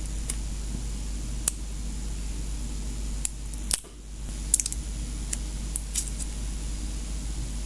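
Scattered small metallic clicks and clinks of a coiled keyboard cable's metal connectors being handled and plugged in, with a quick cluster of clicks around the middle, over a steady low hum.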